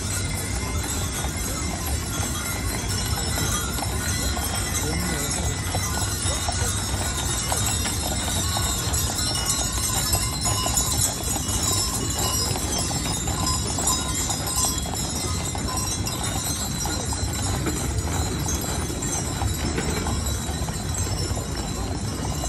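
A team of draft horses walking on asphalt, many hooves clip-clopping and overlapping as they pull a heavy barrel wagon, with crowd voices in the background.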